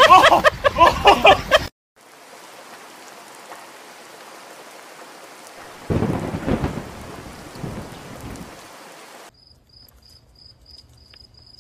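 Steady rain with a sudden loud thunderclap about six seconds in that rumbles away over a few seconds. It opens with shouting that cuts off abruptly, and near the end comes a quick, regular high chirping of crickets.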